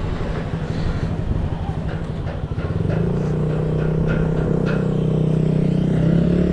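A motor vehicle's engine running with a steady low hum, which comes in more strongly about three seconds in and edges slightly up in pitch near the end.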